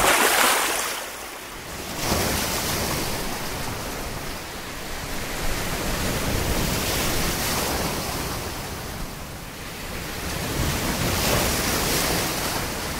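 Sea surf: waves breaking and washing in, the noise rising and falling in slow surges.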